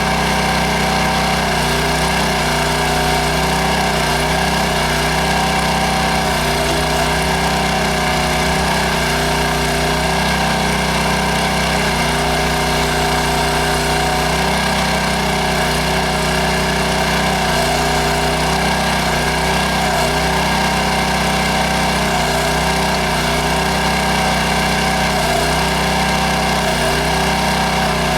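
Small gas engine of a towable backhoe running steadily, its pitch dipping briefly every few seconds as the hydraulics are loaded while digging.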